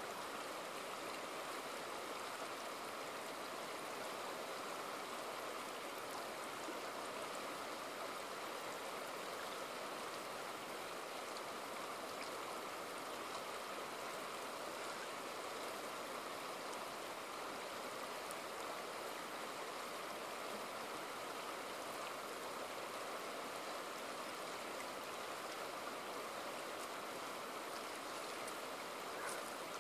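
Shallow river running steadily over rocks and gravel.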